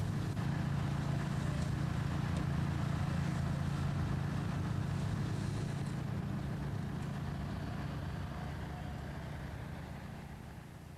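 Steady rumble of distant road traffic, a car and a truck driving along the road, with a steady low hum underneath; the sound slowly fades out toward the end.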